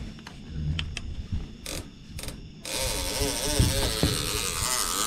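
Fishing reel being worked. A few light clicks come first, then from about two and a half seconds in a steady mechanical whir whose pitch wavers up and down.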